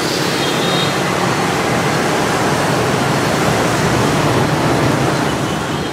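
Dense city traffic of motor scooters and cars passing close by: a steady, unbroken rush of engine and tyre noise.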